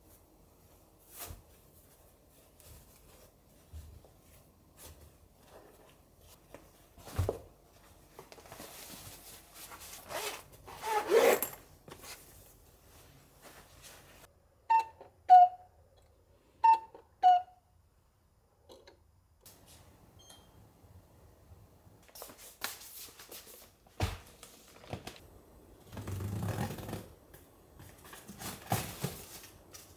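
Handling sounds: a zipper drawn shut on a fabric insulated lunch bag, then four short clear tones in two high-then-low pairs, and near the end a large plastic dog-food bag rustling and crinkling as it is lifted and handled.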